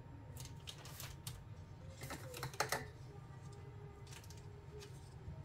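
Light, irregular taps and clicks of a fork pressing down along the edge of a dough turnover on floured parchment, crimping it shut, a little busier about two seconds in. A faint steady low hum lies underneath.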